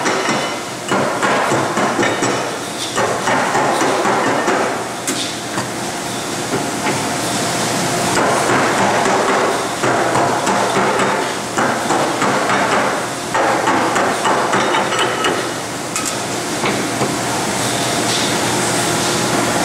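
Rapid metallic tapping and clattering in uneven bursts of a second or two, from a flat hand plate being worked across a radiator core of corrugated fins and tubes in an assembly frame.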